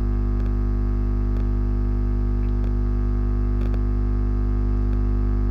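Loud, steady electrical mains hum, a low drone with a stack of buzzing overtones, over a faint hiss, with a few faint clicks.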